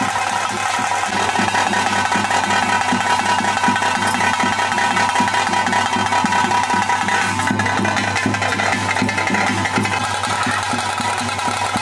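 Ritual drumming in quick, continuous strokes over a steady sustained drone, the accompanying music of a Tulu Bhuta Kola.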